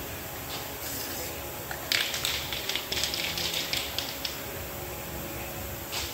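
Aerosol spray can hissing in a quick series of short bursts from about two seconds in until past four seconds, over a low steady hum.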